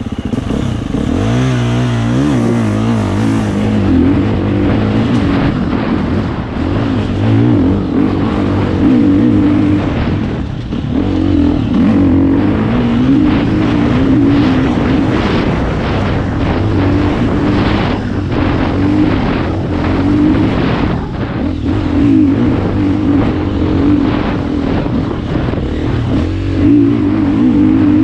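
Husqvarna FE 350's single-cylinder four-stroke engine ridden hard on a dirt trail, pulling away with a rising rev about a second in, then revving up and down as the throttle opens and closes, with brief drops off the throttle twice.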